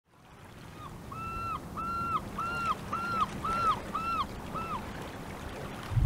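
A gull giving a run of about eight repeated cries, each held briefly and dropping at the end, over a low sound of sea waves, fading in from silence at the start.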